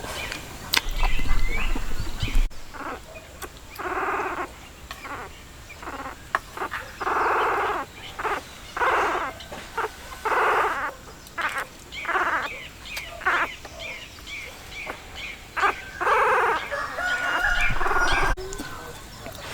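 Farm animals calling: a run of short calls, each under a second, coming every second or two.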